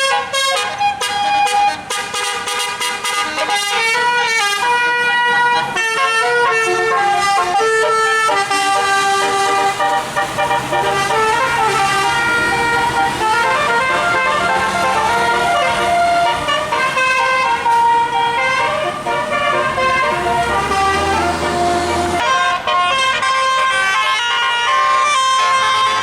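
Multi-tone telolet bus horn playing a fast melody of quickly changing notes, then holding a steady chord for the last few seconds.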